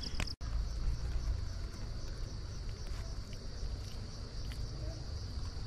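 Insects buzzing steadily in a high, even drone, with a low rumble underneath; the sound breaks off for an instant about half a second in.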